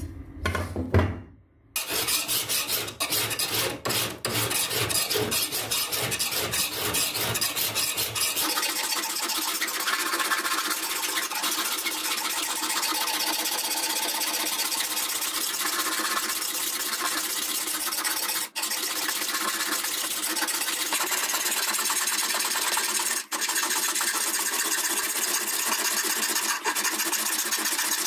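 A hand file scraping back and forth along a rusty steel knife blade in quick, continuous strokes, taking the rust off the metal.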